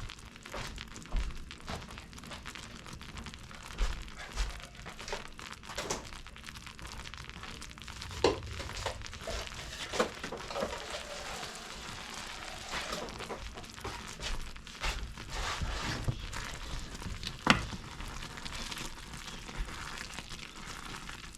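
Butter toffee mixture boiling in a pan with a steady sizzling hiss as it heats toward the hard-crack stage, with scattered clicks and knocks, one sharper knock near the end.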